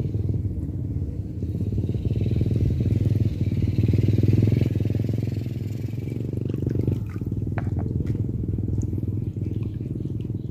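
A small engine running steadily, swelling a little about four seconds in and easing off after about seven seconds, with a few faint ticks near the end.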